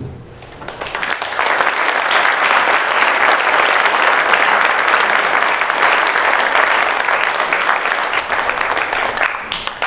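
Audience applause. Many people clapping, building up about a second in, holding steady, and dying away near the end.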